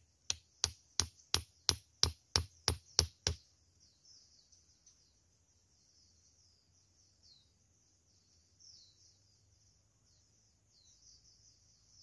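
About ten sharp knocks, roughly three a second, as a knife strikes a small wooden stake and drives it into the soil, stopping after about three seconds. Behind it a faint, steady high chirring of insects.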